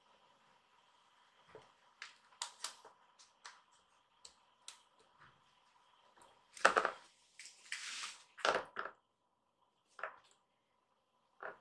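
A kitten scratching and digging in a plastic litter box of pellet litter: scattered short crunches and rustles of pellets. A few louder scrapes and knocks come about halfway through, as it climbs onto the rim, then two brief ones near the end.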